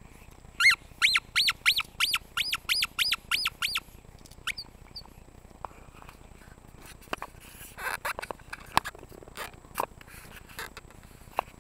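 A quick run of about a dozen high squeaks, each rising and falling in pitch, about four a second for three seconds. Scattered clicks and short rustles follow.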